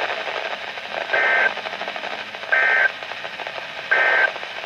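Emergency Alert System end-of-message signal on NOAA Weather Radio: three short bursts of buzzy digital SAME data, about a second and a half apart, over radio static, marking the end of the alert.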